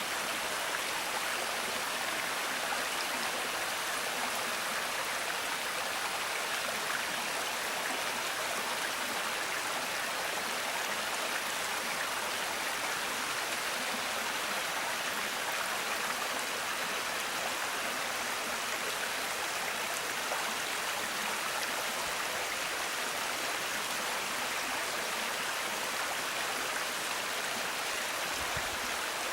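Water from a small winter waterfall rushing and splashing over rock, a steady even noise.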